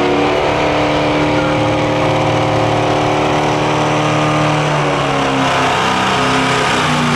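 Super stock diesel pickup truck engine at full throttle pulling a weight-transfer sled, a loud, steady engine note that sags lower in pitch about five seconds in as the engine lugs under the sled's growing load.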